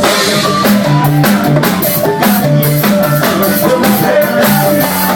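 Live band playing an upbeat forró instrumental passage, with drum kit, bass and guitar keeping a quick steady beat.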